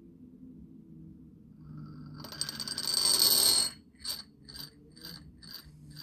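Stainless-steel spinning top running on a concave glass base: a loud metallic ringing scrape lasting about a second and a half, then rhythmic ringing clinks about twice a second as the top shakes. The shaking comes from friction at the spot where the tip sits.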